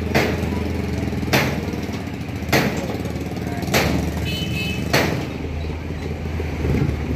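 A vehicle engine running steadily at a low pitch, with a sharp knock repeating about every second and a quarter.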